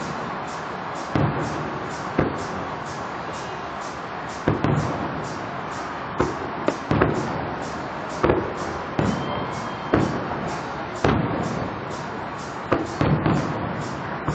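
Distant aerial firework shells bursting: about a dozen sharp bangs at irregular intervals, some in quick pairs or triplets, each trailing off in an echo, over a steady background hiss.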